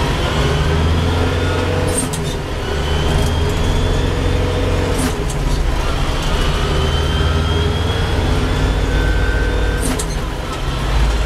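LS XU5055 tractor's 55-horsepower diesel engine, heard from inside the cab, pulling uphill from first gear and running up through the gears. Its pitch climbs in each gear and drops back at each shift, around two, five and ten seconds in.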